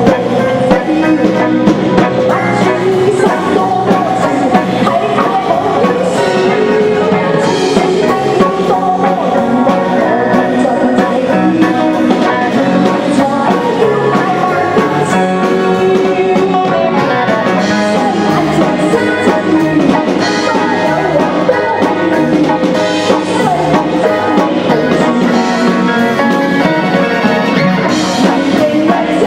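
Loud, steady band music with drum kit and guitar, played through the stage sound system at a getai show.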